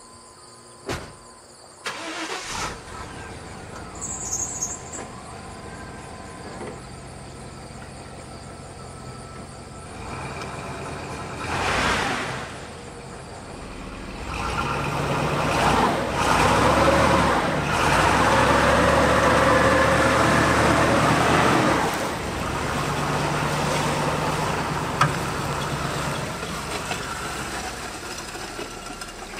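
Pickup truck engine running, working harder for several seconds in the middle while it drags a dead car out on a tow strap, then easing back to a steadier run.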